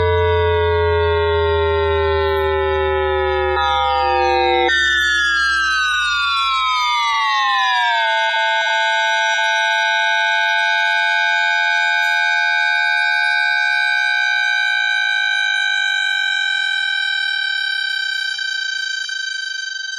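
Hitachi VFI-HD2420C IGBT VVVF traction inverter on a Beijing Subway DKZ5B train, picked up by an inductor, as the train slows. In synchronous one-pulse mode a stack of electric tones slides down in pitch, jumps to a new pattern about five seconds in and keeps falling, then about eight seconds in settles into asynchronous 780 Hz mode, a steady high whine that stays level.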